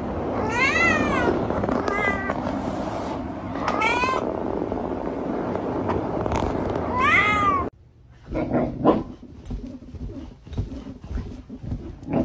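A domestic cat meowing four times, each meow rising and then falling in pitch, over a steady hiss. The sound cuts off abruptly about two-thirds of the way through, leaving fainter, irregular short noises.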